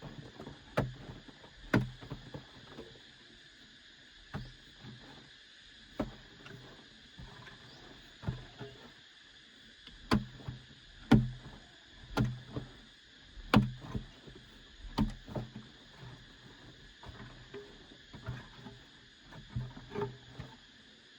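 Repeated dull thuds, about one a second in uneven runs with short pauses between them, over a steady chorus of buzzing insects.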